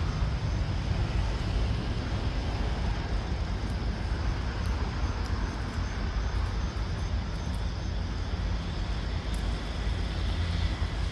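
Steady low rumbling background noise, even throughout, with no distinct animal calls.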